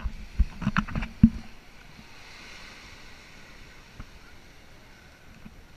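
Thumps and knocks of the camera being handled and buffeted by wind during the first second and a half, then the steady wash of small waves lapping on a sandy beach, with wind on the microphone.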